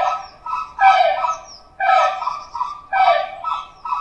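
Flamingo calling: repeated honking calls, about one a second.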